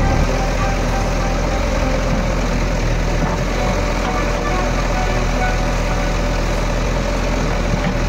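JCB 3DX Eco backhoe loader's diesel engine running steadily as the backhoe arm works its bucket through mud and water.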